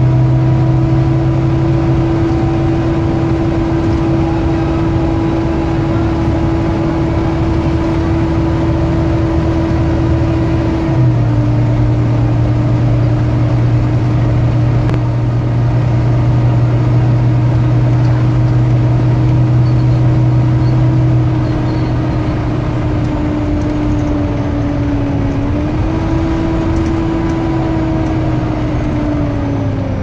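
Volvo B9TL double-decker bus's six-cylinder diesel driveline running on the move, heard from inside the passenger saloon, with a strong steady whine over the engine hum, the sound behind the bus's "Hoover" nickname. The whine's pitch steps down slightly about eleven seconds in and dips and rises again near the end as the bus changes speed.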